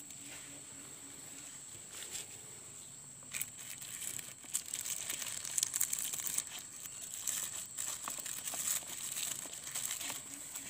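Plastic grafting tape and sheet crinkling and rustling in the hands as they are wrapped and tied around the grafted seedling stems, starting about three seconds in and thickening into dense irregular crackling.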